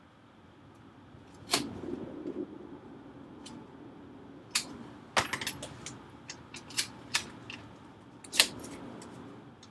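Hands working on the inside of an iMac: scattered sharp clicks and taps with light rustling, the loudest click a little over eight seconds in.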